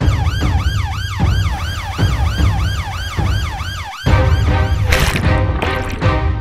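Police siren yelping, a fast rise and fall about three times a second, over a heavy bass music beat. About four seconds in it cuts off and music with a steady pulse takes over, with a loud rushing whoosh around five seconds in.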